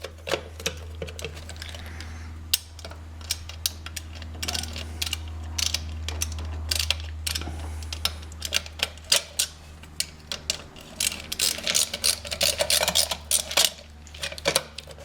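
Scattered small metal clicks and taps as a Phillips screwdriver works the locking screw and nut on a motorcycle headlight's trim ring, with the hardware handled by hand, over a steady low hum.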